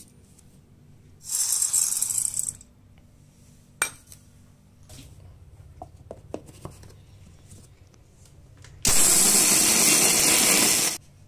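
Roasted split gram (daliya dal) rattling as it is poured into a steel mixer-grinder jar, a sharp click and a few light ticks as the jar is closed, then the mixer grinder runs loudly for about two seconds near the end, grinding the dal to powder, and stops abruptly.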